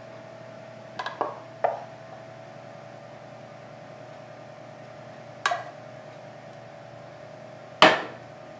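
A wooden spoon knocking against a small stainless saucepan and a plate as meatballs in sauce are spooned onto a bun: five short knocks spread out, the loudest near the end, over a faint steady hum.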